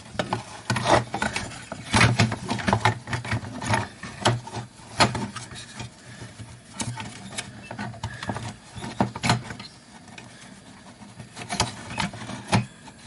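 Irregular plastic clicks, taps and rubbing as a timing light's circuit board and red plastic housing are handled and fitted together, over a low steady hum.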